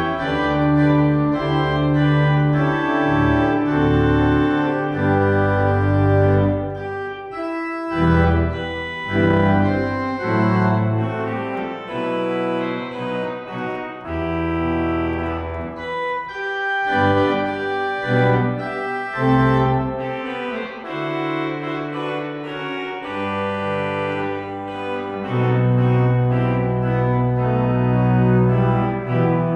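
Organ music in slow, sustained chords over held bass notes, the chords changing every second or two, with short pauses between phrases.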